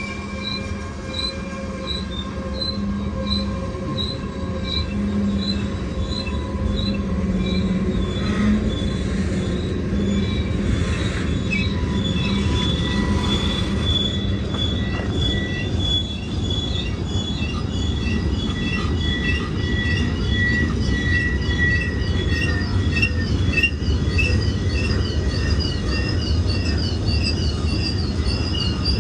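BNSF freight train rolling at a crawl with its brakes applied, the brake shoes squealing on the wheels in several steady piercing tones, plus a chirp that repeats about twice a second, over the low rumble of the cars. In the second half a faster, warbling high squeal builds.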